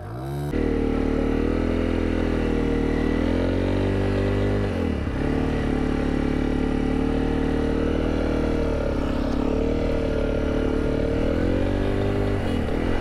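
Honda CRF300 Rally's single-cylinder engine running under way, its revs slowly rising and falling, with a brief sharp dip about five seconds in and again near the end. The bike is being ridden with burnt clutch plates.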